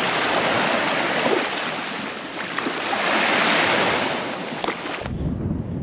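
Ocean surf washing onto the shore: a steady hiss that swells about three seconds in and eases off. It cuts off abruptly near the end, when a lower rumbling noise takes over.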